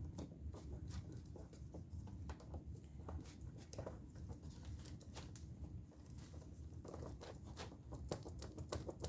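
Faint, scattered clicks and rustling of hands handling a chainsaw's bar and chain as they are pulled off the saw, over a low steady hum.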